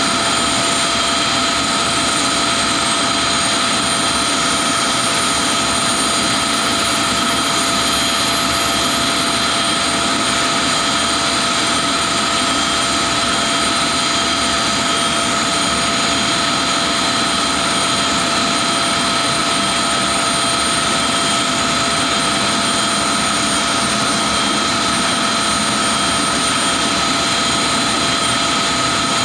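Avro Vulcan XM655's Rolls-Royce Olympus turbojets running, a loud steady jet roar with several high whines; one whine climbs slowly in pitch through the first half, as an engine's speed comes up.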